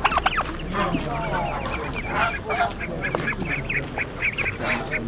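Domestic ducks and geese calling, irregular at first, then a quick run of short repeated calls, about five a second, from about four seconds in.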